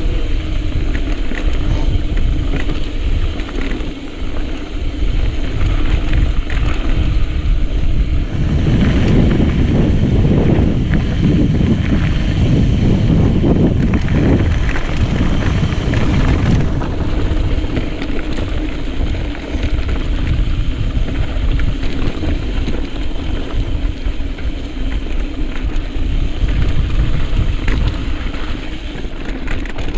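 Mountain bike riding down a rocky trail: tyres on dirt and rock, with a constant rattle of the bike over the bumps and heavy wind buffeting the microphone. The rumble grows louder for several seconds in the middle.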